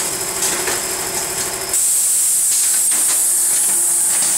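P510T automatic form-fill-seal bagging machine running with a steady mechanical hum; a little under two seconds in, a loud steady hiss starts and holds.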